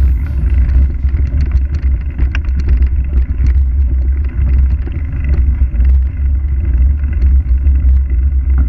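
Loud, fluctuating low rumble with scattered small clicks and rattles, muffled at the top: road and wind noise picked up by a bike-mounted action camera rolling over cobblestones.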